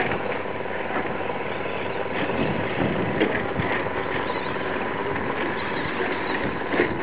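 Brushless electric RC short-course trucks racing on a dirt track: a steady mix of motor whine and tyre and track noise.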